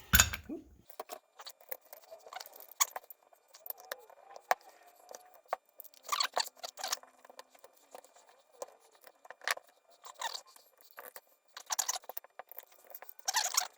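Small metal brake-caliper parts (pads, shims and a spring) clicking and rattling as they are handled and pressed into a motorcycle's front caliper, in irregular short bursts with pauses between.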